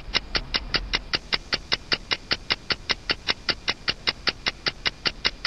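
Background music with a fast, even ticking beat of short high notes, about five a second.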